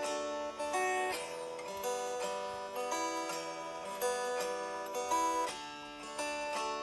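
Soft instrumental music: plucked strings, like an acoustic guitar, picking out sustained notes.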